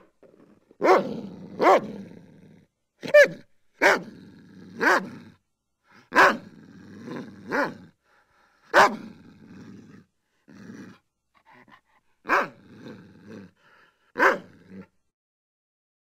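German Shepherd barking: about ten sharp barks at uneven intervals, with quieter sounds between them and a pause partway through. The barking stops about a second before the end.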